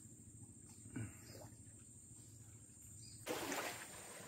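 Quiet riverbank ambience: low steady outdoor noise from the flowing river. A soft knock about a second in and a short rustle of movement near the end.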